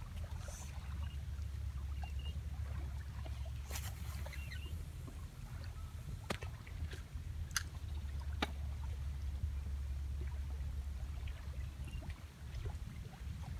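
Steady low wind rumble on the microphone by the water, with a few sharp clicks from the spinning rod and reel as a shrimp rig with a pyramid sinker is cast out and the line is set.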